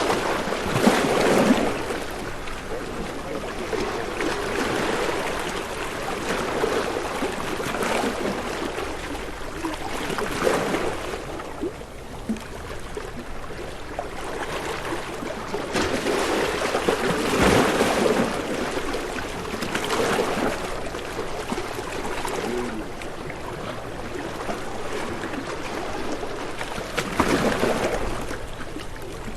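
Ocean waves breaking and washing in, the noise swelling and ebbing every few seconds.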